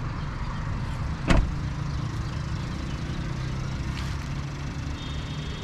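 Suzuki Alto 660cc three-cylinder engine idling steadily, quiet and even, with a single car-door thump about a second in.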